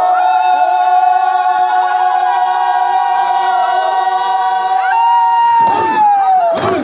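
A group of men in traditional warrior dress chanting together in long held notes, one pitch gliding down near the end, then a brief burst of shouts.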